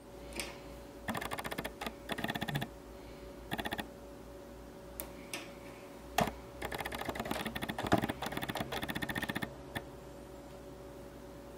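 Metal knitting needles clicking as stitches are worked, in quick runs of fine clicks with short pauses and a few sharper single clicks, over a faint steady hum.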